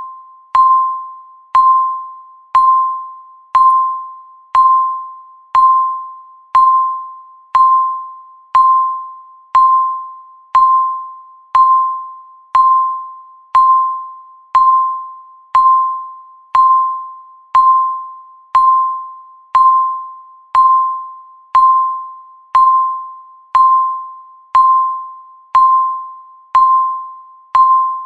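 Countdown timer beeping once a second: a single mid-pitched electronic beep that starts sharply and fades out before the next, about 28 beeps in an even, unchanging rhythm.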